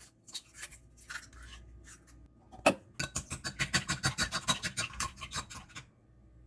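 A knife scraping and tapping on a cutting board, then one sharp knock and a fast, even run of chopping strokes, about nine a second, for nearly three seconds.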